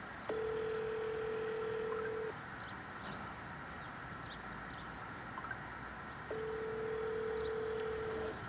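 Telephone ringback tone heard over a phone's speaker: two steady two-second rings about four seconds apart, the sign that the call is ringing through and not yet answered.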